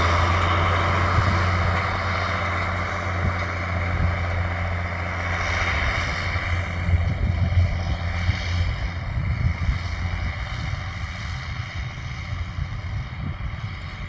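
John Deere 6930 tractor's six-cylinder diesel engine running steadily under load while pulling a cultivator through the soil, fading as the tractor moves away.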